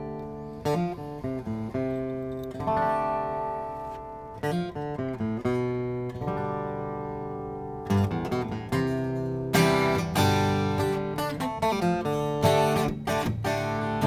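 Steel-string acoustic guitar opening a song: a few single strummed chords left to ring and fade, then steady rhythmic strumming from about eight seconds in, getting louder a little after.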